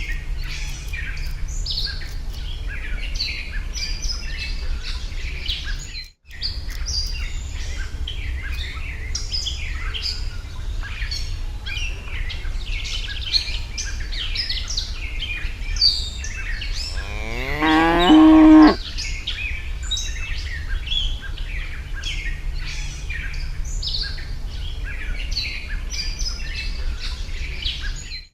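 A cow moos once, a long call about two-thirds of the way through, over continual small-bird chirping and a low steady rumble.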